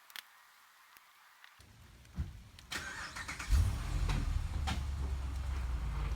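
A thump a little over two seconds in, then a vehicle engine starts about three and a half seconds in and runs at a steady low idle.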